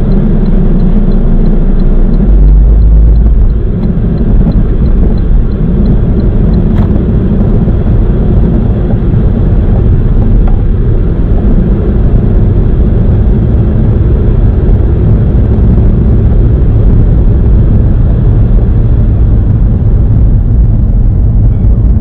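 Cabin noise of a 2003 Saab 9-5 Aero on the move: a steady low road and engine rumble from its turbocharged four-cylinder, with a deeper surge of rumble lasting about a second and a half, two seconds in. A faint quick ticking is heard over the first several seconds.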